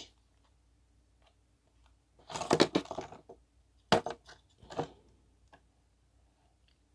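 Handling noise from multi-function fishing pliers and their packaging: about a second of crackly rattling clicks a couple of seconds in, then two sharp clicks about a second apart.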